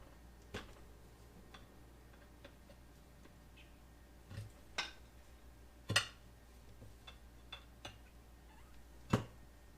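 Hand tools working an old tire off a small go-kart rim: scattered sharp clicks and knocks of big screwdrivers or pry bars against the rim and tire bead, with fainter ticks in between; the loudest knocks come about six seconds in and near the end.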